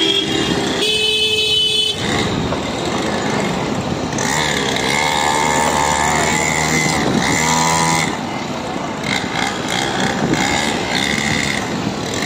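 Motorcycle engines running in street traffic: a 49cc mini petrol dirt bike ridden among full-size motorcycles, with engine pitch rising and falling through the middle.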